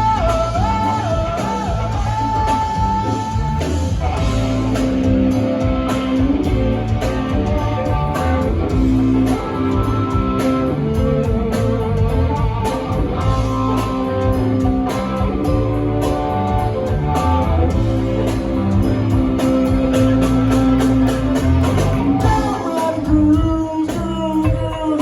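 Live band playing a rock song, with a sung vocal over electric guitar and a steady beat.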